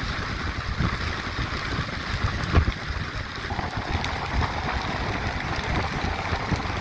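Speed boat under way: a steady low rumble mixed with rushing water and wind noise. A single thump comes about two and a half seconds in.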